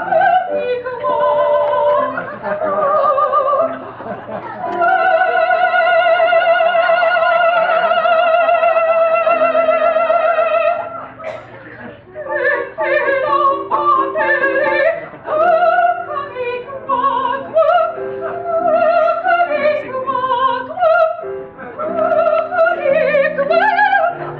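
Operatic singing: a voice holds one long note with wide vibrato for about six seconds, then moves through quicker phrases over a steady lower accompaniment.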